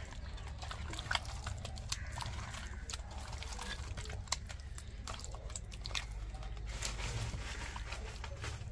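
A hand squeezing and turning tongue fish pieces in thick, wet masala paste in a bowl: irregular wet squelches and small sticky clicks.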